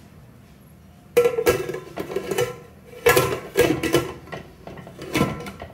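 Steel pressure cooker lid being fitted onto the pot: a run of metallic clanks and knocks that ring briefly, starting about a second in.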